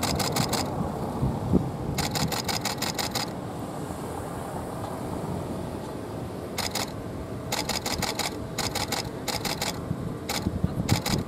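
Camera shutters firing in rapid bursts, several frames a second: photographers' cameras shooting continuously, in about eight separate runs of clicks, with low street noise underneath.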